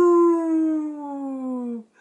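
A woman's voice howling like a wolf: one long held 'ooo' that slides down in pitch and gets quieter, stopping just before the end.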